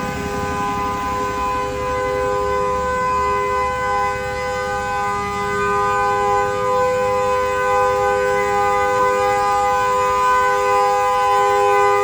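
Car horn held down continuously: a steady two-note blare that does not rise or fall in pitch.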